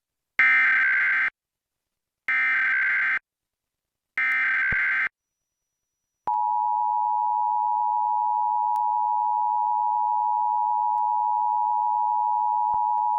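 Emergency Alert System data header: three short bursts of warbling digital tones about two seconds apart. After a pause of about a second, the steady two-tone EAS attention signal starts and holds.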